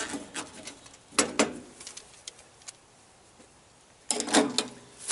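A few sharp clicks and knocks of hand tools being handled on top of a metal pool controller box: one clear knock about a second in, lighter taps after it, a quiet spell, and a quick cluster of clicks near the end.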